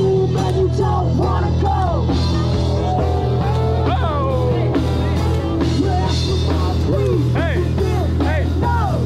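A rock band playing: drums and a steady bass line under bending, gliding guitar or vocal lines.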